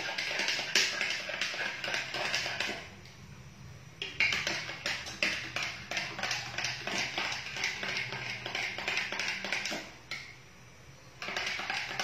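Quick, irregular tapping and clicking from hands working at a kitchen counter, pausing briefly twice, about three seconds in and again near the end.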